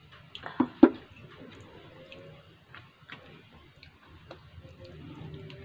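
A ceramic coffee mug knocks down onto the table a little under a second in, followed by scattered soft, wet clicks of chewing and eating by hand.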